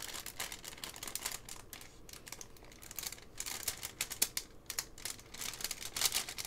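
Clear plastic packaging crinkling and crackling in irregular rapid clicks as hands handle packaged enamel pins, with a few sharper ticks in the second half.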